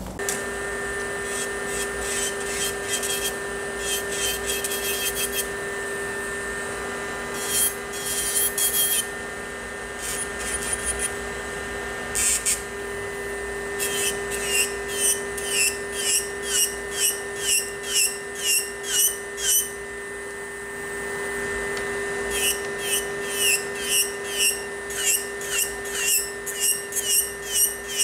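Saeshin electric nail drill running with a steady whine while its bit grinds gel polish off a fingernail. The grinding comes in short repeated strokes, about two a second, in two runs: one a little past halfway and one near the end.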